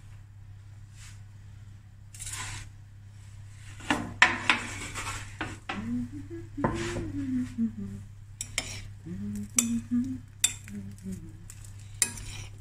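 Metal spoon clinking and scraping against a glass bowl as a rice salad is tossed. The clinks start about four seconds in and come in quick, uneven knocks.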